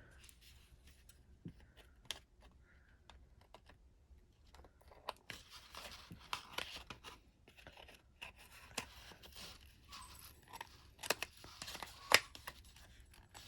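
Pen packaging being handled and opened by hand: faint rustling and scraping with scattered sharp clicks, the loudest near the end.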